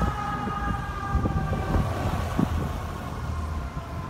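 FDNY fire engine's siren fading as the truck drives away, its pitch slowly falling, over the low rumble of the truck's engine.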